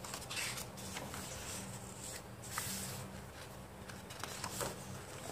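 Pages of a thick album photobook being turned by hand: a few soft paper rustles and slides over a faint steady hum.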